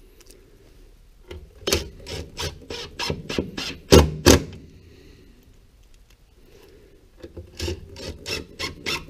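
Wooden chair slats and frame being handled: a run of short knocks and rubbing scrapes of wood against wood, with the two loudest knocks close together about four seconds in, a quiet pause, then more knocks near the end.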